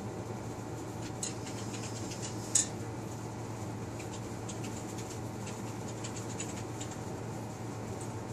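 Light clicks and scratchy taps at a stainless-steel water bowl as a cat paws at ice cubes in the water, in two spells of quick ticking, with one sharp clink about two and a half seconds in. A steady low hum runs underneath.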